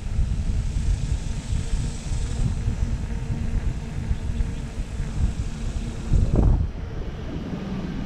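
Wind buffeting the microphone over the rumble of a mountain bike's tyres rolling on a concrete path, with a stronger gust about six seconds in.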